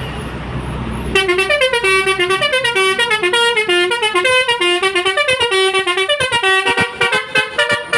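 Basuri musical bus horn (telolet-style multi-tone horn) playing a quick melody of short, loud notes, starting about a second in. Near the end the notes break into rapid stuttering blasts.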